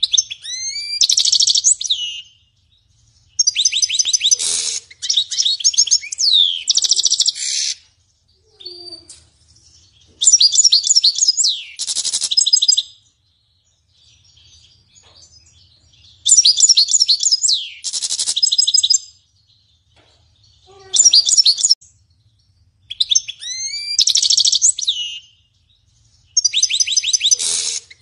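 European goldfinch singing loudly: a run of song phrases made of rapid high trills, twitters and gliding notes, each one to four seconds long, with short pauses between them.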